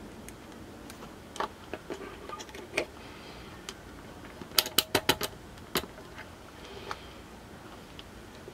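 Scattered small clicks and taps from hands handling electronics test gear on a table, with a quick run of about half a dozen sharp clicks a little past the middle as a hand works a digital multimeter.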